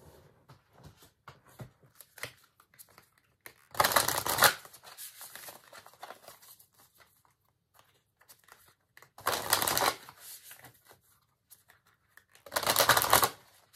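A tarot deck being shuffled in three short rushes of cards, about four seconds in, about nine seconds in and just before the end, with soft clicks of cards being handled in between.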